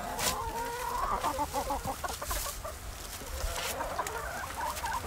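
Flock of hens clucking and calling continuously around the digger, with a few crunching scrapes of a hay fork digging into icy compost.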